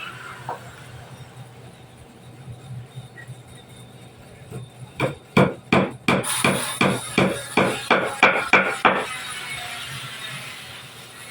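Hammer blows on wood: a quick run of about a dozen sharp strikes, roughly three a second, starting a little before halfway and stopping about four seconds later.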